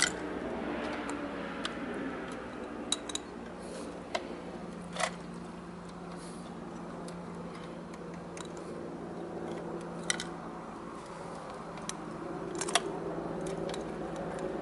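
Scattered light clicks and taps as a 1/34-scale diecast garbage truck's plastic side-loader arm and a toy trash cart are moved by hand, the sharpest click near the end, over a faint steady hum.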